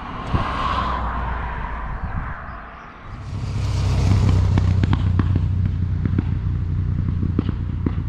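Motorcycle engine running loud, dipping briefly about three seconds in and then coming back up steady with sharp crackles over it.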